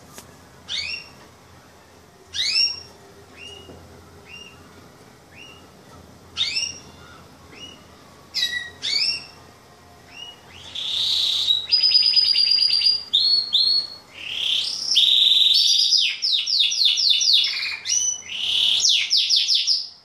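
Male Yorkshire canary singing, a cock coming into breeding condition: separate rising chirps every second or two, then from about halfway a loud, continuous song of rapid trills and rolls.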